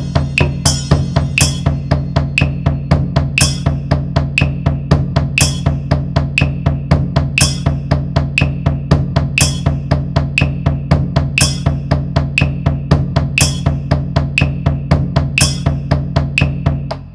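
Fast, even drumming on large drums, the heads ringing low under every stroke, with a sharp, bright accent about every two seconds. The drumming stops abruptly near the end.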